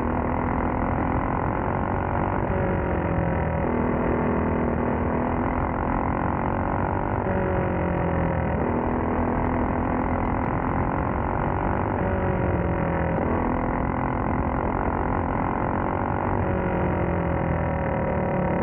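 Racing kart's small engine running hard at close range, its pitch repeatedly dropping and climbing back up every few seconds as the kart slows for turns and accelerates out of them.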